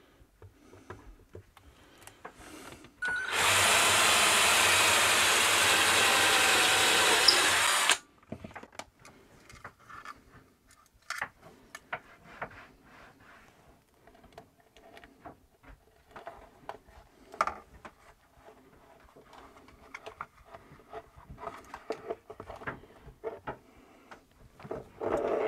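Cordless drill boring a hole through a wooden cabin panel, running steadily for about five seconds from about three seconds in and stopping abruptly. Afterwards there are only light scattered clicks and rustles as a thin wire is fed through the new hole.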